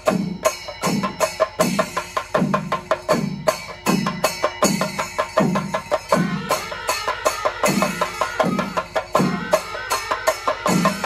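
Chembada melam: Kerala chenda drums with ilathalam cymbals playing a steady rhythmic cycle. Deep strokes fall roughly three to every two seconds under fast, dense drum strokes and the ringing of the cymbals.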